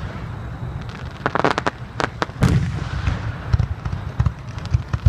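Aerial fireworks exploding in a rapid, irregular series of bangs and crackles, with a quick run of crackling shells about a second and a half in and louder booms soon after.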